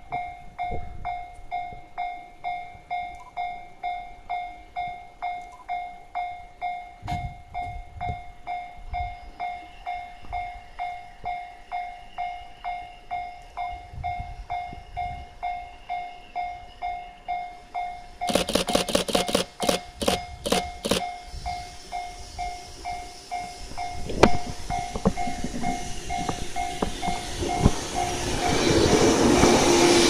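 Japanese level-crossing warning bell clanging steadily, about one and a half strikes a second. A little past the middle comes a quick run of about eight short, sharp sounds. From there the noise of the approaching JR East 485-series electric train grows until it is passing the crossing near the end.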